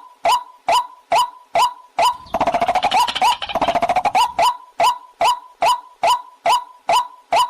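Recorded waterhen calls used as a hunting lure: a short call note repeated evenly about twice a second, broken about two seconds in by some two seconds of fast, harsh rattling chatter before the steady notes resume.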